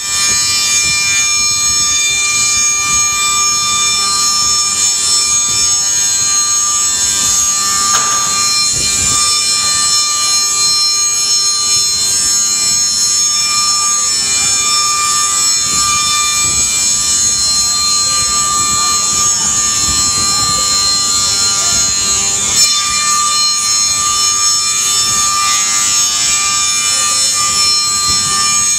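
Weinig Unimat 818 four-sided moulder running while Ipe decking boards feed through it: its spinning cutterheads give a loud, steady, high-pitched whine made of several held tones.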